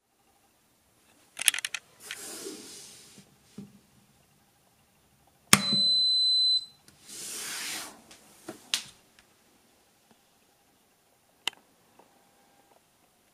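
A sharp click as the cooker's wall switch is flipped on, then at once a single steady high beep lasting about a second from the Smeg electric oven powering up. A few softer clicks and bursts of rustling handling noise come before and after it.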